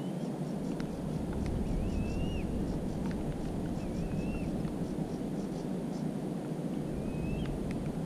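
Steady low rushing noise with a few sharp clicks, and a bird's short, wavering whistled notes four times.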